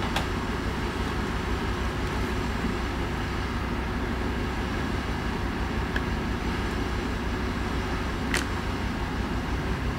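Steady low background hum with a few faint clicks of a thin pry tool against the tablet's metal back cover as it is worked along the edge. The clearest click comes about eight seconds in.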